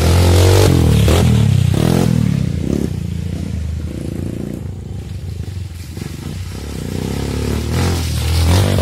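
Trail motorcycle engine revving up and down while riding, loudest at first, easing off in the middle and picking up again near the end.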